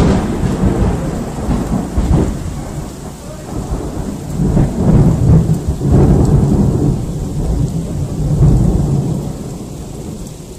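Loud thunder rumbling and rolling in several swells after a sharp clap, slowly fading toward the end, over steady rain.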